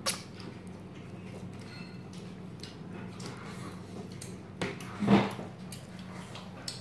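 Quiet restaurant room tone with a steady low hum and a few light clicks, and one short louder sound about five seconds in.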